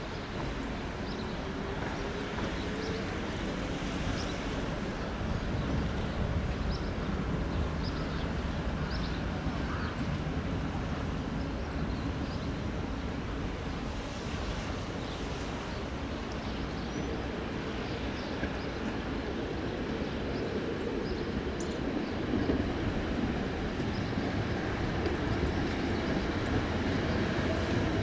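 Steady low rumble of traffic on a tram street, slowly growing louder toward the end as a tram draws near.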